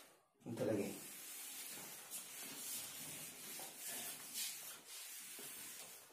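A board duster wiping writing off a whiteboard in repeated strokes, a soft rubbing hiss.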